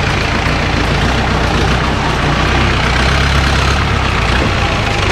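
Off-road jeep's engine running with a steady low rumble, heard close by over a constant hiss.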